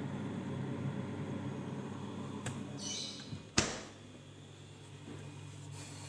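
LG two-door refrigerator running with a steady low hum, now cooling again after repair. A single sharp knock comes about three and a half seconds in, after which the hum is quieter.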